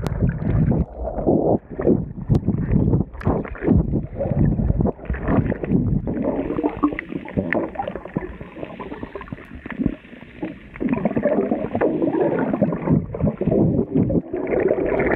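Water sloshing and bubbling around a swimmer moving underwater, heard from below the surface, so it is muffled and dull, with irregular surges.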